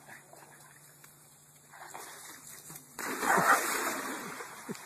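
A dog jumping into a swimming pool: one loud splash about three seconds in, followed by water sloshing as the dog swims.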